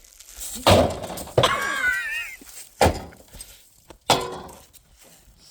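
Four hard blows smashing into a refrigerator, with cracking and breaking, the last one leaving a brief metallic ring.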